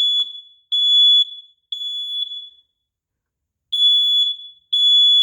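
Smoke alarm sounding its loud, high-pitched beep in the temporal-three evacuation pattern: three half-second beeps, a pause of about a second and a half, then three more, set off during an alarm test.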